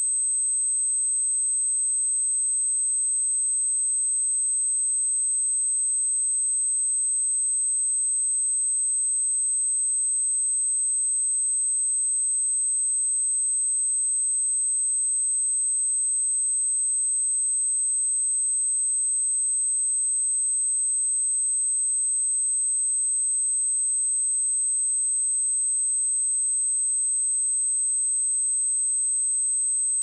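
Steady pure sine-wave test tone at 8227 Hz, a single high-pitched whistle held at constant level, used to check speakers or headphones.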